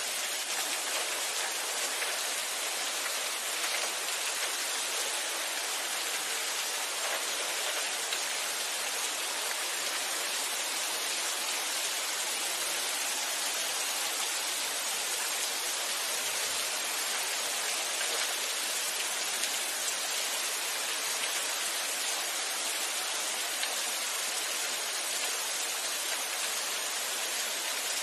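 Steady rain falling, a dense even hiss of many drops.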